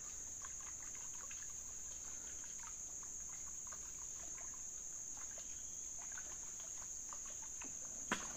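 Steady, high-pitched drone of a forest insect chorus, with faint water trickles and drips from a canoe paddle. There is one sharp knock near the end.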